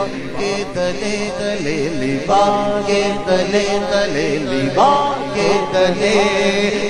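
Unaccompanied male voices chanting an Urdu naat: a lead voice sings long, wavering held notes over a steady low hum of other voices.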